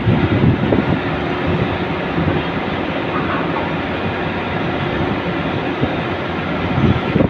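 Steady low mechanical rumble of engines, with a few brief louder swells near the start and the end.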